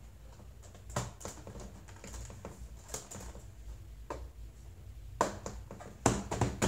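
Plastic Lego pieces clicking and knocking as a Lego building's sections are handled and fitted together. There are a few scattered clicks, then a quicker run of taps near the end.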